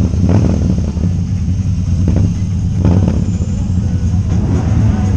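Steady low rumble of a road vehicle under way on the highway.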